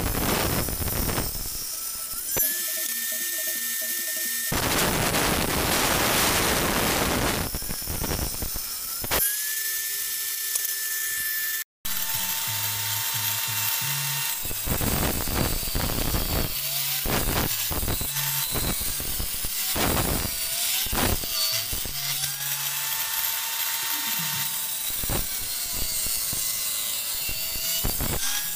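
Homemade table saw, a circular saw blade mounted under a plank bench, running and ripping through wood in long noisy stretches, its whine rising and then holding steady twice. In the second half there are many short knocks and clicks. Background music plays throughout.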